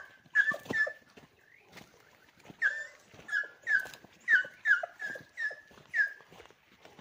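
A tied-up dog whining in short, high yelps that drop in pitch, about two a second. There is a brief pause after the first second, then a steadier run of yelps that stops shortly before the end.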